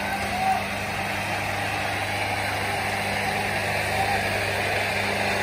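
A steady, even machine drone with a low hum, like an engine running.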